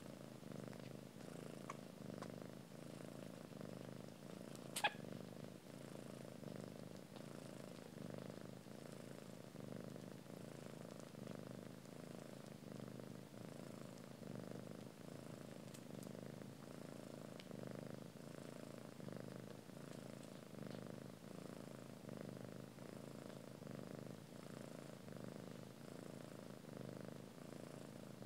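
Cats purring steadily as a mother cat nurses her kittens; the purr swells and fades about every two seconds. A single brief sharp click sounds about five seconds in.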